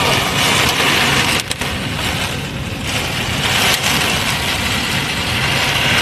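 Torrential rain beating on a car's windshield and roof, heard from inside the car as a loud, steady hiss, easing slightly for a moment about two seconds in.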